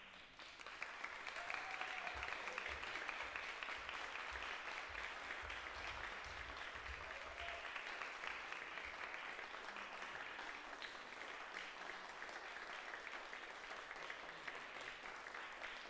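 Theatre audience applauding, building over the first couple of seconds and then holding steady.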